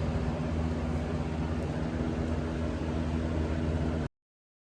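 A steady low mechanical hum with hiss over it, cutting off abruptly about four seconds in.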